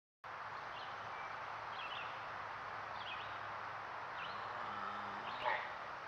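Woodland background: a steady hiss with a small bird's short, high chirps repeating about once a second, and one brief louder sound near the end.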